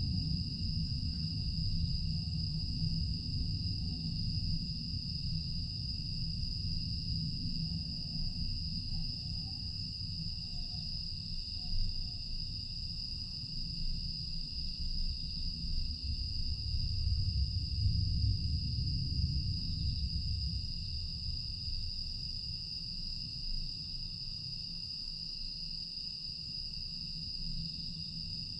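A steady, continuous high-pitched chorus of night insects (crickets and other grass insects) over a low rumble that swells and eases and dies down toward the end.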